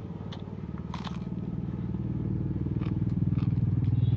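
A motor vehicle's engine, running with a fast even pulse, growing steadily louder as it approaches. A few close crunching and clicking eating sounds come over it, about a second in and again near the middle.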